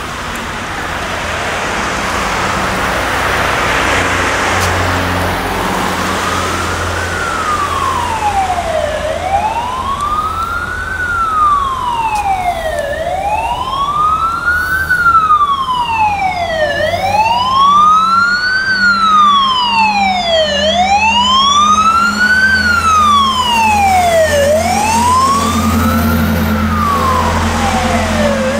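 Fire engine's siren wailing, sliding slowly up and down about once every four seconds and growing louder as it approaches, over the noise of passing road traffic.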